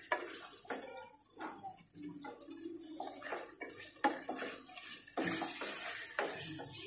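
Mutton and spice masala sizzling in oil in a metal pot while a metal spatula stirs and scrapes against the pot in irregular strokes. This is the bhuna stage, the meat being browned in the oil. The sizzle grows louder for about a second past the middle.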